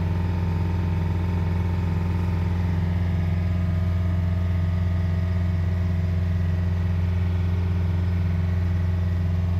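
Motorboat engine running steadily at high revs, near 3000 rpm, a deep unbroken drone. It is working hard against a strong current, which holds the boat to about 4.5 knots.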